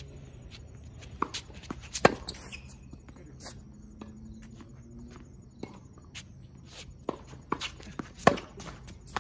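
Tennis ball struck hard by a racket twice, about six seconds apart, the second hit being a forehand groundstroke. Between them are fainter sharp clicks of ball bounces and hits from across the court.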